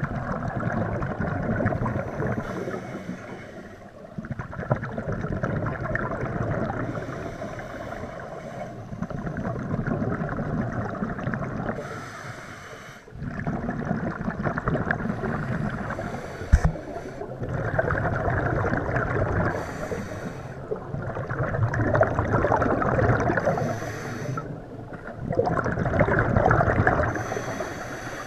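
Scuba diver breathing through a regulator underwater. Each inhale gives a short hiss, and each exhale a longer rush of bubbles, at about one breath every four seconds.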